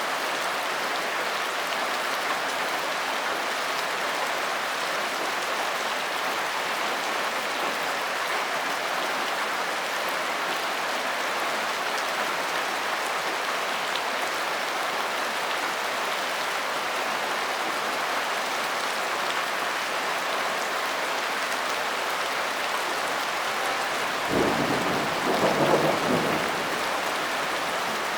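Steady rain falling, an even hiss throughout. Near the end a short, low rumble of thunder rises over the rain for about two seconds.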